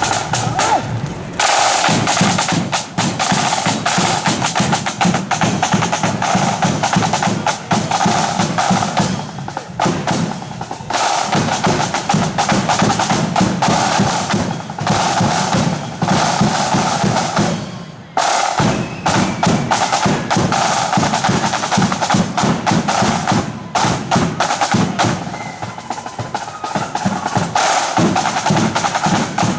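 Marching flute band's snare and bass drums playing a rapid, dense parade beat with rolls. The drumming breaks off briefly about eighteen seconds in.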